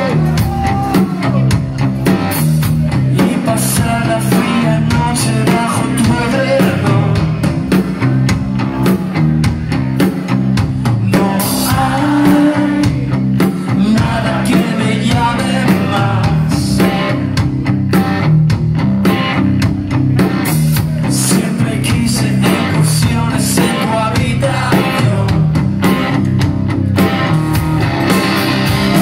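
Live rock band playing loud: electric guitars and drum kit with a singer's vocals.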